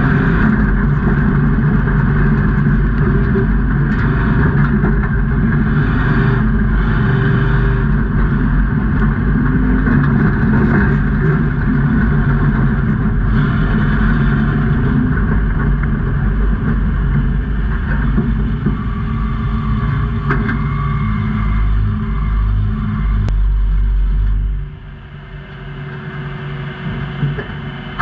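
Off-road race truck engine running hard at speed, revving steadily; the sound drops off sharply near the end.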